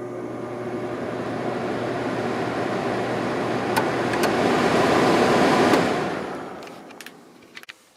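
Sharp 6,500 BTU air conditioner's Samsung fan motor spinning up on low speed: the blower's air rush builds steadily for about six seconds, then fades away as the fan coasts down. A few sharp clicks come in the second half.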